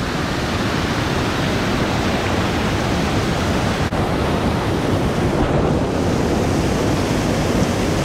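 Steady, loud rush of river water pouring over a low dam's spillway close by, white water churning through a pile of logs.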